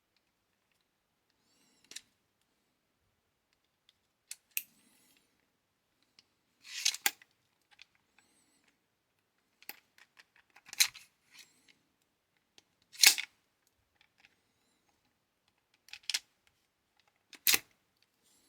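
Plastic clacks of an autoloading multi-bit screwdriver being worked, its bit-magazine mechanism snapping bits in and out: about nine separate sharp clacks, with one longer sliding rasp about a third of the way through.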